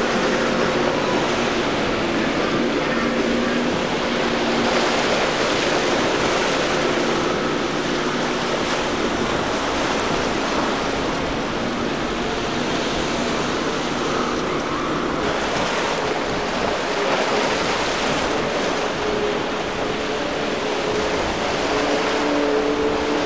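Choppy water and a boat's wake rushing, with the steady hum of an outboard engine underneath. The hum comes first from a single Yamaha 175 hp outboard pushing a center-console boat through rough water. About two-thirds of the way in, its pitch changes as a second, smaller outboard boat takes over.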